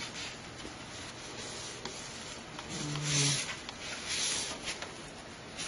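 Hands rubbing and scraping against cables and parts inside a desktop computer case while connectors are being reseated, with a couple of louder scrapes about three and four seconds in.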